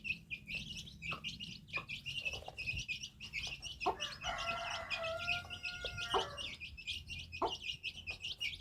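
Birds chirping rapidly and continuously, with one long, even call of about two seconds starting about four seconds in.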